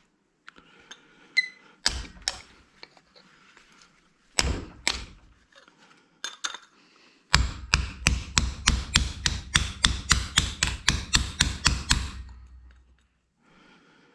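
Hammer blows on a hard drive platter laid over something, bending it so the data can't be read: two single strikes, then a quick run of about twenty blows, four or five a second.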